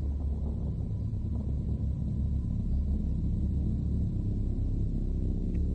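A deep, steady rumble that slowly grows louder, with no gunshot heard.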